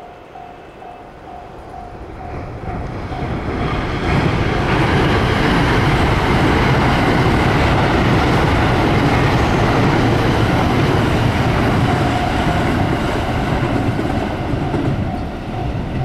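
A JR West limited express electric train passes a level crossing at speed. Its running noise and wheel clatter build over the first few seconds, stay loud for about ten seconds, then ease off. The crossing's warning bell rings in an even, repeating ding, about two strokes a second, at the start and again as the train clears.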